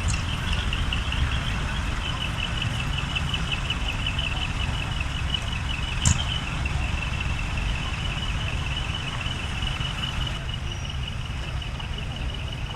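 Heavy truck's diesel engine idling with a steady low rumble, under a high, rapidly pulsing tone, with one sharp click about six seconds in.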